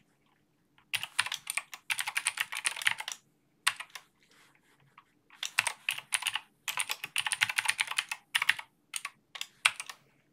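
Typing on a computer keyboard: rapid runs of keystrokes in bursts, with short pauses near the start and around four to five seconds in.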